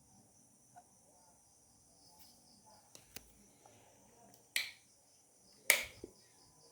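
Sharp clicks from PC hardware being handled: a few faint ticks, then two louder clicks about a second apart, the second the loudest, over a faint steady high-pitched drone.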